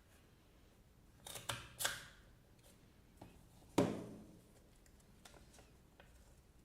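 MUJI stapleless stapler being squeezed through a few sheets of paper, cutting and folding a paper tab. It makes a loud sharp clack a little under four seconds in, with a couple of softer clicks and paper rustles about one and a half to two seconds in.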